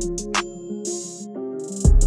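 Background music with an electronic drum beat, hi-hats and a bass line. The bass and kick drop out for about a second in the middle, with a short hissing sweep, and the beat comes back in near the end.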